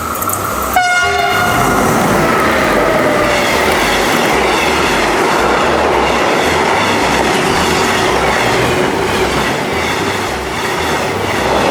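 A train passing by. About a second in its horn sounds, the pitch sliding down as it passes, then a steady rumble and clatter of wheels on the rails.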